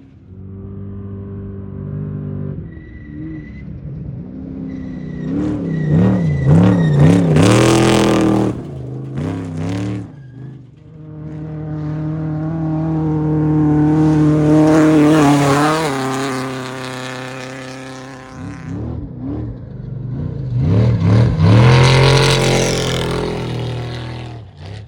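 Off-road race vehicles passing one after another at full throttle, three loud passes in turn. Their engines' revs rise and fall rapidly as each one goes by.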